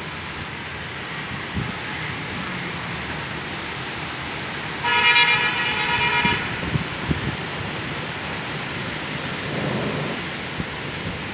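Steady rush of heavy rain and wind in a storm. A vehicle horn sounds once, about five seconds in, for about a second and a half, louder than the rain.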